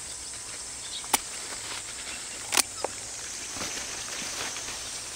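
Steady high-pitched insect chirring, with rustling of leaves and stalks and a few sharp clicks, one about a second in and a louder one near the middle.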